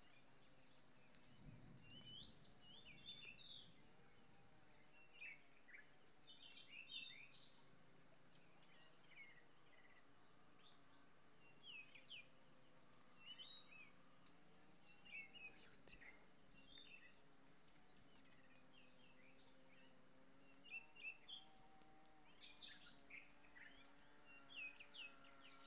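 Faint birdsong: scattered short chirps and calls from small birds, coming every second or two over a near-silent background.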